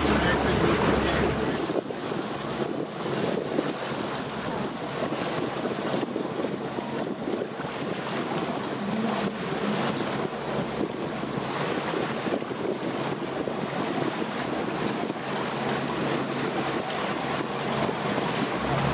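Wind buffeting the microphone over water rushing and splashing along a moving boat's hull. A low rumble drops away about two seconds in.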